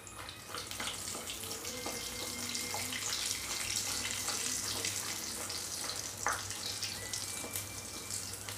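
A sondesh-stuffed maida puri frying in hot ghee in a steel kadai: a steady sizzling hiss with scattered crackles, building about a second in and staying strong through the middle. A single sharp tick comes about six seconds in.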